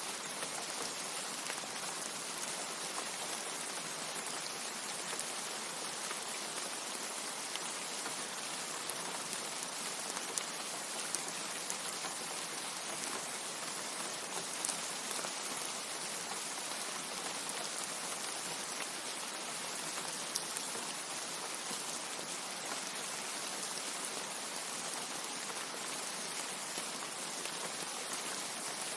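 Steady rain falling, an even hiss with scattered sharper drop hits on a surface.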